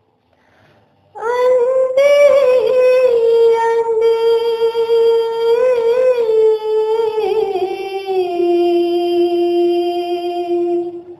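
A woman's voice singing one long, drawn-out melodic phrase with a few ornamented turns, stepping down to a lower held note near the end. It comes in about a second in, after a near-silent gap.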